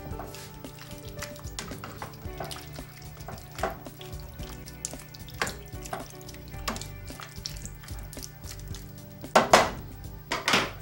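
Spoon stirring chopped peppers and tomatoes in a frying pan, with repeated short scrapes and clinks against the pan and one louder knock near the end.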